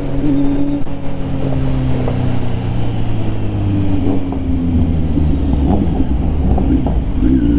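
Kawasaki Z900 inline-four motorcycle engine running on the move, its exhaust note holding steady, then easing lower, then rising briefly near the end, over a heavy low rumble of road and wind.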